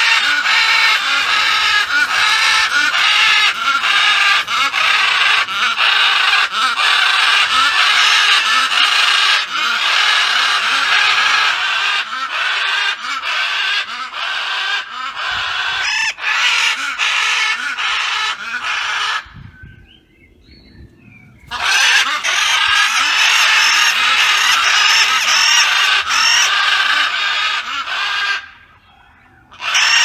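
Blue-headed macaws (Coulon's macaws) calling loudly in a rapid, unbroken run of harsh squawks. The calling stops abruptly for about two seconds past the middle and again briefly near the end.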